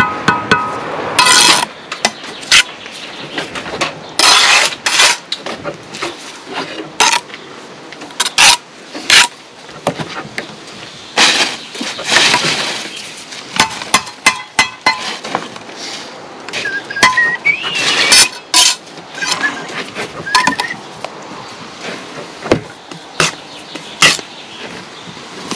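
Bricklayer's steel trowel knocking, tapping and scraping on concrete blocks and mortar as blocks are bedded in: an irregular run of sharp clinks and knocks.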